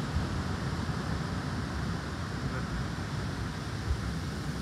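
Wind buffeting the microphone over a steady rush of breaking surf.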